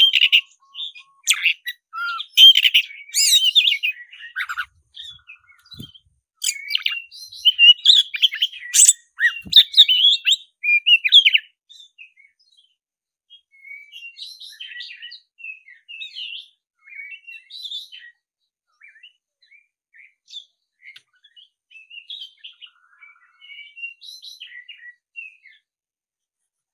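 Black-breasted Oriental magpie-robin singing a loud, varied fighting song of rapid whistles and chirps for the first eleven seconds or so, then softer, scattered notes that stop near the end.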